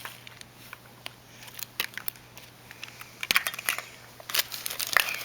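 Small plastic toys and surprise-egg pieces being handled: scattered sharp clicks and taps with some crinkling, the loudest click near the end.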